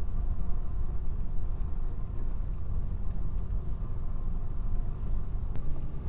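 Steady low rumble of a car driving along a snow-covered road, heard from inside the cabin, with a single faint click near the end.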